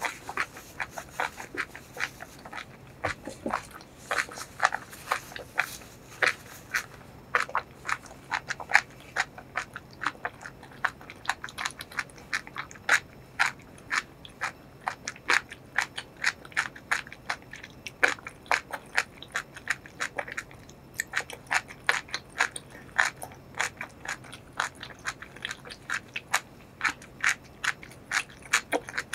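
Close-miked chewing of food with the mouth closed: a steady run of wet mouth clicks, several a second, without a break.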